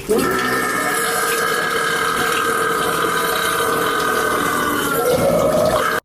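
One long, loud burp held at a steady pitch for about six seconds, rising a little near the end before it cuts off suddenly.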